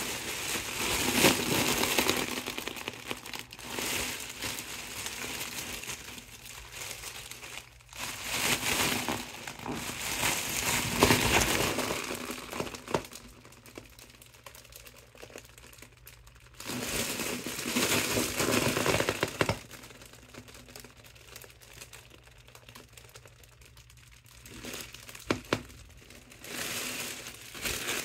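Mylar foil balloon crinkling loudly as hands squeeze and press it flat to force the air out. It comes in several bouts with quieter pauses between.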